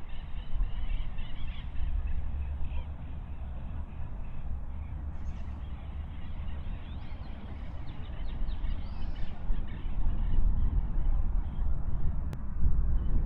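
Birds calling in short bursts over a steady low rumble.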